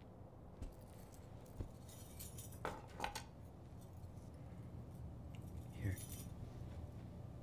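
Bangles on a woman's wrists clinking and jingling as she moves her hands, in a few short spells with soft knocks between, over a low steady hum.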